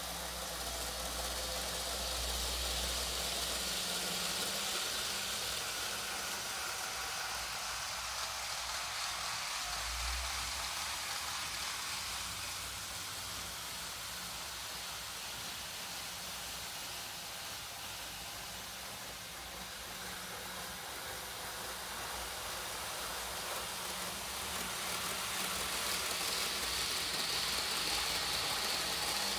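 N-gauge model trains running on the layout's track: a steady hiss-like whir of motors and wheels on rail. It grows louder near the end as a train comes round the near curve.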